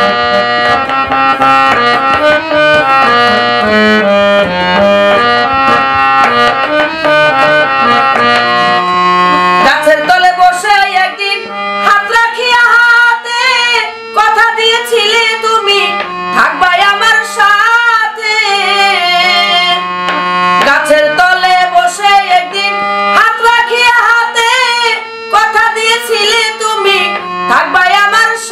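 Bangla folk song: an instrumental interlude of held harmonium chords with drum accompaniment, then from about ten seconds in a woman's voice sings a wavering melody over the harmonium and drums.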